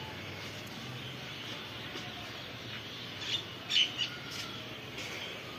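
Small birds chirping, a few short high chirps with a brief cluster a little past the middle, over steady faint background noise.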